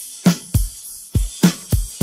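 Drum kit playing alone, an AI-separated (Demucs) percussion stem of a 1970s pop recording: bass drum and snare alternating in a steady beat, about five strikes in two seconds, with hi-hat and cymbal shimmer above.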